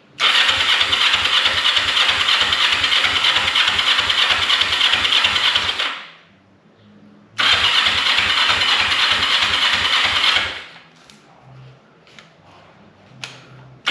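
Kawasaki 454 LTD motorcycle's parallel-twin engine being cranked on the electric starter in two long attempts of about six and three seconds, a fast steady chugging under the starter's whine, without catching, after sitting unused with only a little fuel in the tank.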